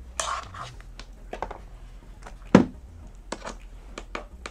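Laptop's metal case handled and turned over on a silicone repair mat: a brief scrape, a few light clicks, and one sharp knock a little past halfway as the machine is set down.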